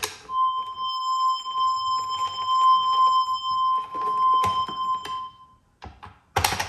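A synthesizer note held as one steady electronic beep-like tone, played from a toy cat piano rebuilt as a MIDI keyboard controller, with small plastic clicks and knocks from the toy's keys and microphone beneath it. The tone stops a little over five seconds in, and a short loud noisy burst follows near the end.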